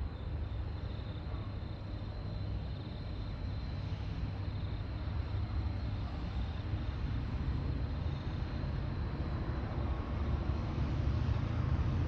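Diesel-electric freight locomotives (Pacific National NR and AN class) working a train as it approaches: a deep, steady engine rumble that grows gradually louder as the train draws closer.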